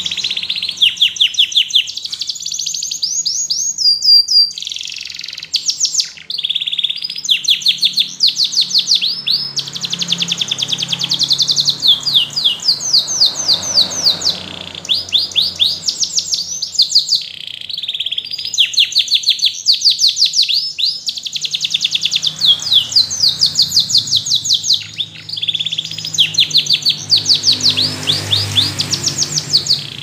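Domestic canary singing a long, continuous song of fast, high trills. One phrase of rapidly repeated notes follows another, with short breaks between them.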